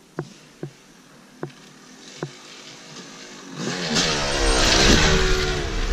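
Dirt bike engine revving as the bike rides up the trail and passes close by. It comes in about three and a half seconds in, is loudest a second later and eases off near the end, after a few sharp clicks in the first couple of seconds.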